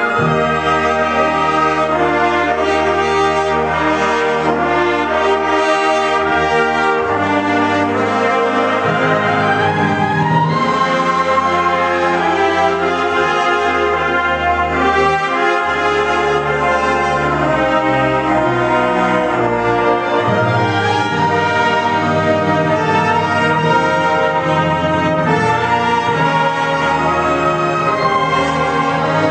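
A full wind band playing a piece: brass, flutes, clarinets and saxophones in held chords over a bass line that moves every second or two.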